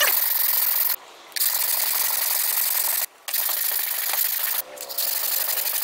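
Large gyuto kitchen knife's steel blade ground flat-side-down on a wet #120 coarse whetstone: a gritty scraping in four long strokes of about a second and a half, with brief pauses between them. The blade's back is being ground down to bring the hard steel core out to the edge.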